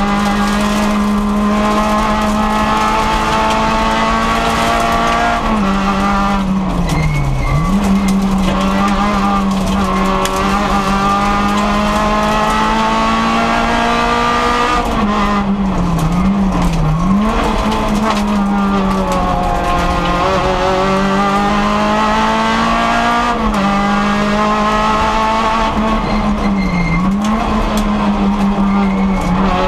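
Rally car engine heard from inside the cockpit, running hard at high revs along a stage. Its pitch dips and climbs back three times as the driver lifts off the throttle and gets back on it.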